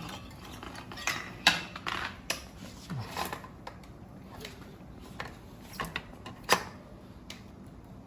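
Light, irregular clicks and knocks of a bicycle headset's small metal parts being handled and fitted back together, about eight in all, the sharpest about six and a half seconds in.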